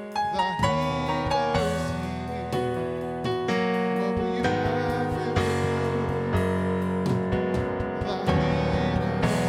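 Worship music from a keyboard or piano, playing sustained chords with a changing melody line.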